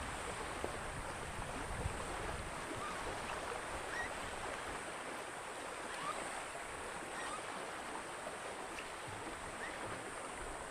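Small waves lapping steadily against a sandy reservoir shore, a sound like the sea.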